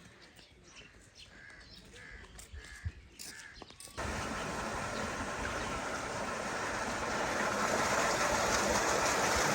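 Crows cawing, about five calls half a second apart, over quiet outdoor background. About four seconds in, a steady rushing noise cuts in abruptly and grows gradually louder.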